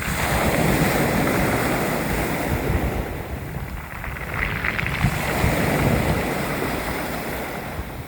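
Sea waves washing onto the shore, the surf swelling and easing in slow surges about every few seconds, with some wind rumble on the microphone.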